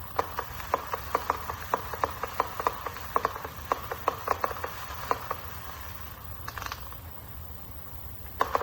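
600-shot 1.3G firework cake firing in quick succession, sharp reports at three to four a second. After about five seconds it eases into a quieter lull, and the shots pick up again near the end.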